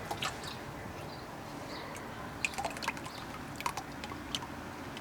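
Engine oil trickling and dripping from the just-removed oil filter's mount, with a few light clicks scattered through.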